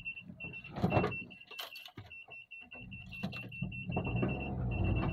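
A car's electronic warning beeper beeping rapidly, about seven short high beeps a second, over the low running of its engine. A few sharp clunks come from the low-slung car as it hangs up on the rough, potholed track.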